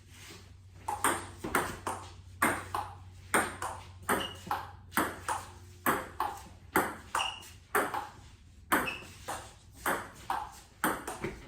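Table tennis rally: the ball clicks off the paddles and table in a steady back-and-forth, about two hits a second.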